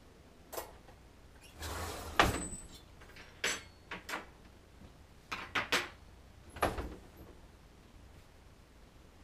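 A string of knocks and clicks as dishes, cutlery and cupboard doors are handled in a kitchen. The loudest knock comes about two seconds in, after a short rustle.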